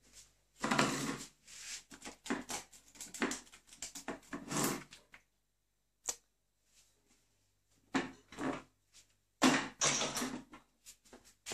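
Irregular scrabbling and clattering of a cat and a ferret playing on a tiled floor, in two spells with a quiet gap between.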